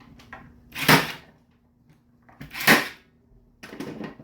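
Milwaukee M12 cordless cable stapler firing twice, about two seconds apart, driving staples over 10/2 Romex cable into a 2x4 stud, followed by softer handling noise near the end.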